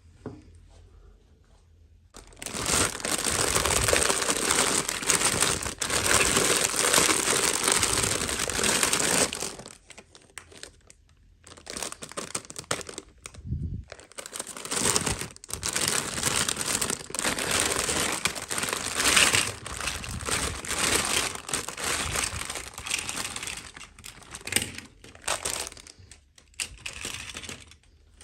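Packaging crinkling as a toy box is unwrapped and opened by hand, in two long stretches with a short pause about ten seconds in.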